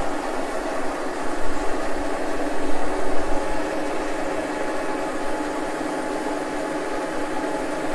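Brown & Sharpe No. 2 milling machine with its vertical attachment running, spinning a boring head at about 400 RPM: a steady mechanical hum with several steady tones.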